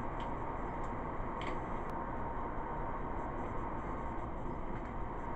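Steady room noise and hiss with a faint steady tone, and a few light clicks in the first two seconds as a small battery package is handled.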